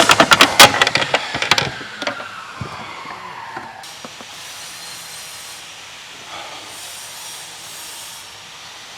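Air tool, likely an impact wrench, rattling in rapid blows for about the first second and a half, then its whine falls away as it spins down, leaving a faint steady hiss.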